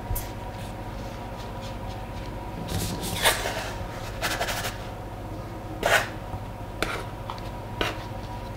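A plastic dough scraper and hands working along a floured worktop, lifting and rolling a sheet of dough: about five short scraping, rustling strokes. A steady faint hum runs underneath.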